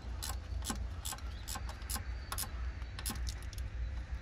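A run of sharp clicks, about two or three a second, over a low steady hum.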